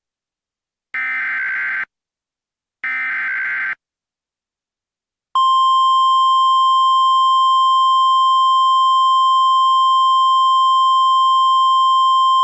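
Emergency Alert System SAME header: two harsh data bursts about a second long each, a second apart. After about a second and a half of silence, the steady NOAA Weather Radio 1050 Hz warning alarm tone sounds, loud and unwavering. These tones signal a warning and set off weather radios.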